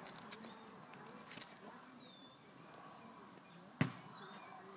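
Faint outdoor background with a few short faint chirps, and a single sharp knock nearly four seconds in.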